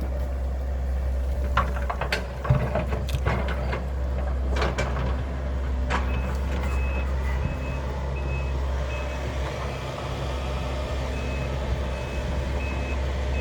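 Excavator engine running steadily, with several sharp knocks and cracks in the first few seconds; from about halfway its backup alarm starts beeping about twice a second as the machine reverses.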